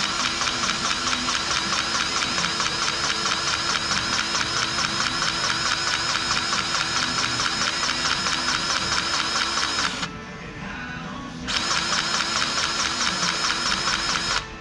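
Cordless grease gun running, its motor pumping with a fast, even pulsing as it forces grease into the fittings of a tractor broom. It runs for about ten seconds, stops briefly, then runs again.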